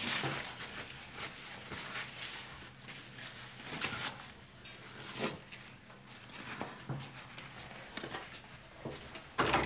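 A paper towel rustling and crumpling in the hands as they are dried: a few soft, separate scuffs, one louder near the end, in a small tiled washroom.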